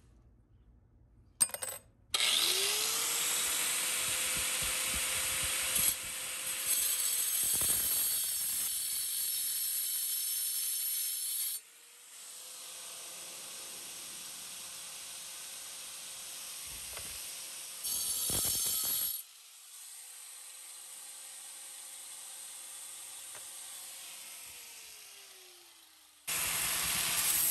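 A handheld power grinder working the cast aluminum-bronze knife in a vise. After a sharp knock, the motor spins up with a rising whine, and a loud grinding noise follows. About halfway through the grinding turns lighter and quieter. Near the end the motor winds down with a falling whine, then loud grinding starts again.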